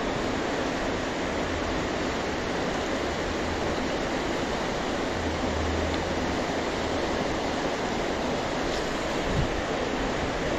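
Steady rushing of a fast, high creek running through a riffle.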